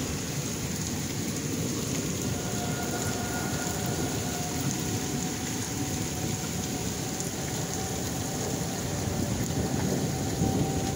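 Severe thunderstorm with very strong wind and rain, a steady rushing noise. A faint steady tone sounds underneath from about two seconds in.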